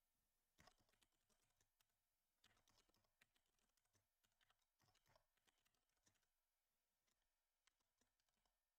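Faint typing on a computer keyboard: scattered keystrokes in a few short runs, with near silence between them.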